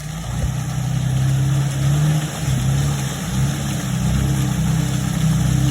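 Jeep TJ engine running while driving off-road through mud ruts, its pitch rising and falling a few times with the throttle.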